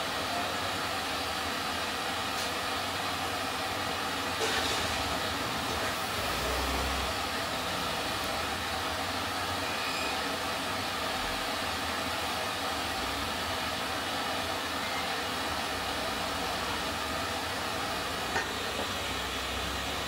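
A steady hiss with a couple of faint metal taps from a small hammer working a part held in a bench vise.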